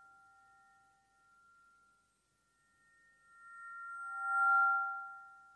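Ambient drone music of a few pure, bell-like ringing tones sounding together in slow swells. The tones fade out at the start and almost die away about two seconds in, then swell up again to a peak near the end.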